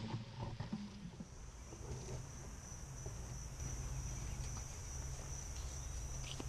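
Faint, steady, high-pitched insect trill, like crickets, over a low hum.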